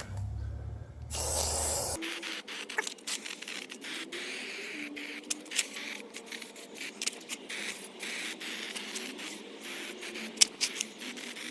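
Bicycle chain degreaser being sprayed onto a mountain bike's chain and rear gears: a running hiss of spray, broken by many short sharp clicks.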